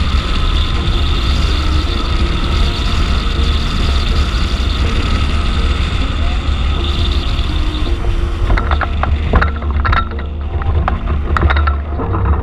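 Rushing airflow buffeting the microphone of a camera on a hang glider in flight, with a steady low rumble and a faint whistle. From about eight seconds in, the wind eases as the glider slows and flares to land, and a run of sharp clicks and knocks comes through.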